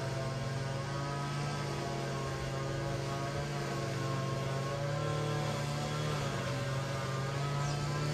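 A steady low droning hum from a motor or engine, its pitch drifting slightly up and down.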